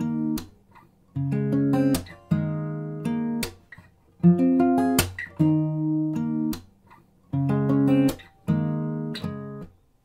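Background music: guitar chords played in short phrases, with brief pauses between them.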